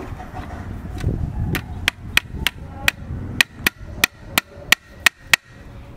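Hammer driving a small nail, held in pliers, through a metal strip into a wooden board: about a dozen quick taps, roughly three a second, each with a light metallic ring, starting about a second and a half in.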